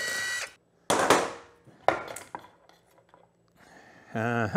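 Cordless power driver spinning out the last crankcase bolt of a Honda CRF450R engine, with a steady high whine that stops about half a second in. A sharp metallic clank follows about a second in, then a few lighter clicks as the aluminium case is handled, and a brief man's voice near the end.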